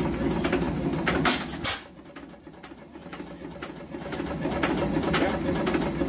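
A 1915 Majestic 5 hp single-cylinder hit-and-miss engine runs with regular sharp exhaust pops. It fires hard a few times, then goes quieter for about two seconds as it coasts on its flywheels between firings, and picks back up.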